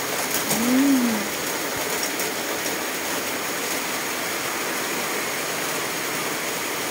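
Heavy rain falling steadily on foliage and ground, an even hiss throughout. About a second in there is a brief tone that rises and then falls.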